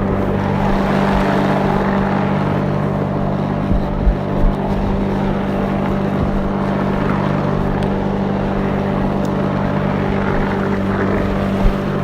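Lawnmower engine running steadily while mowing grass, with a constant engine hum and a few short low bumps about four seconds in.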